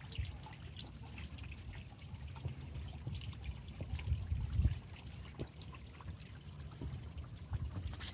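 Water fountain trickling and splashing as water runs down stacked hand-carved onyx spheres and drips into a rock-filled basin. A low rumble runs underneath and swells about four seconds in.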